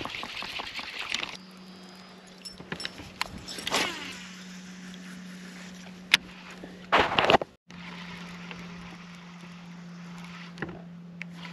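Electric trolling motor humming steadily from about a second in, with a few clicks and knocks of fishing tackle against the boat and a short louder clatter about seven seconds in.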